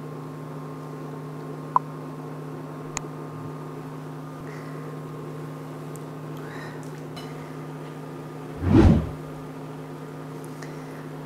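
Steady electrical hum of an induction hob heating a pot of water, with a couple of light clicks and a brief low thump about nine seconds in.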